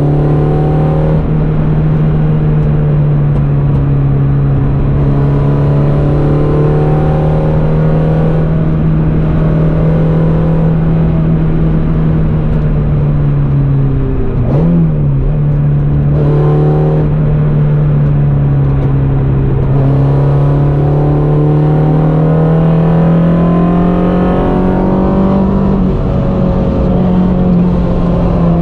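Peugeot 106 Quicksilver's four-cylinder petrol engine, heard from inside the cabin, held at steady high revs under load at track speed. Its note dips briefly and recovers about halfway through, and climbs slowly in pitch near the end. Road and wind noise run underneath.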